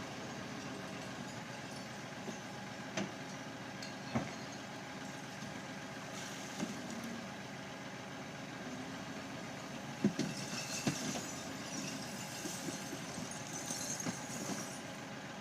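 Vehicle engine idling steadily, with a few sharp knocks, the loudest about ten seconds in, and a hiss in the later part.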